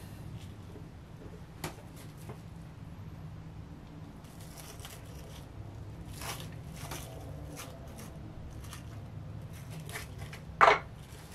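Cling film crinkling and rustling with small clicks as hands press a soft soap ball inside a plastic sphere mould. Near the end comes one short, sharp knock, the loudest sound.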